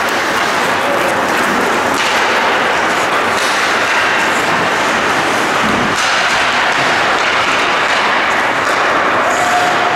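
Steady, loud noise of an indoor ice hockey rink during play, with a couple of sharp knocks.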